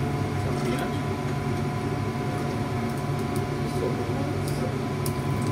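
Steady mechanical hum of commercial kitchen ventilation, with a few faint clicks.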